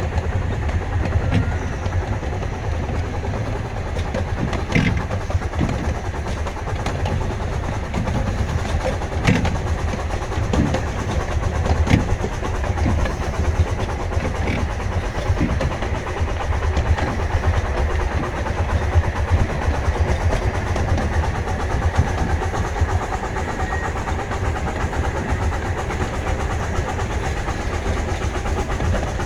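Redwood Valley Railway steam train pulled by locomotive #7 'Oak' running, heard from the cars: a steady rumble of the train on the track with occasional sharp clicks.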